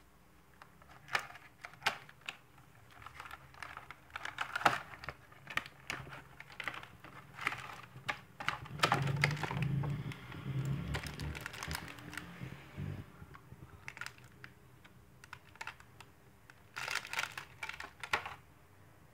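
Hands handling a smart band's cardboard box and clear plastic tray: irregular clicks, taps and plastic rustling as the box is opened and the band and cable are taken out, busiest around the middle, then a pause and a short last flurry of clicks near the end.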